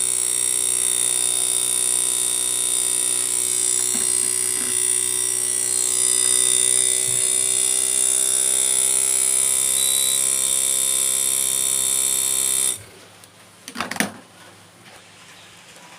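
LG 2.5 HP split inverter air conditioner running, its inverter-driven compressor, working again after an IPM replacement, giving a steady electronic whine with a high hiss. The sound cuts off abruptly about 13 seconds in as the power is switched off, and a single knock follows about a second later.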